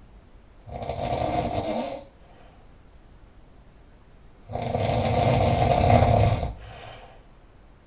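A person snoring very loudly, two snores about four seconds apart. The second is longer and is followed by a quieter breath.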